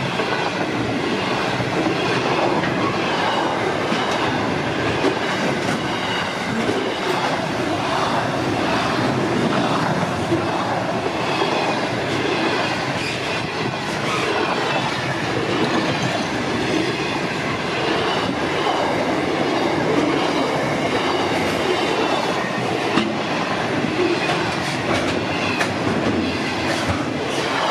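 Container and tank wagons of a freight train rolling past at close range, wheels clattering steadily over the rail joints, with a thin wavering squeal from the wheels.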